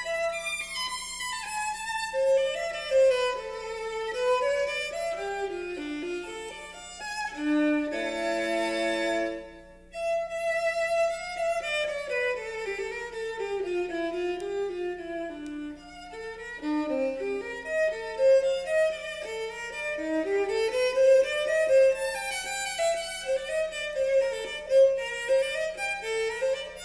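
Violin music in quick running passages of notes climbing and falling, with a held chord about eight seconds in, played back through a Western Electric 4165 horn-loaded loudspeaker driven by Western Electric 1126 and 59 amplifiers. A faint steady low hum sits under the music.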